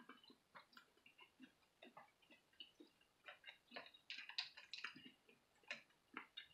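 Faint, scattered clicks and clinks of crawfish, lobster and clam shells knocking together as a hand digs through a glass bowl of seafood boil, thickest about four to five seconds in.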